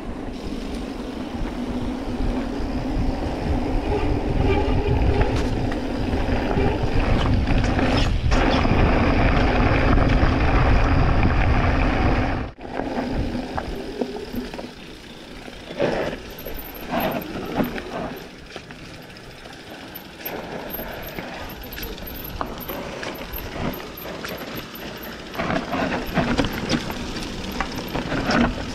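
Mountain bike riding down a rough dirt trail: wind buffeting the microphone and tyres rolling over loose ground, with knocks and rattles from the bike. About halfway through the loud wind rumble cuts off suddenly, leaving quieter riding noise with scattered clicks and thuds.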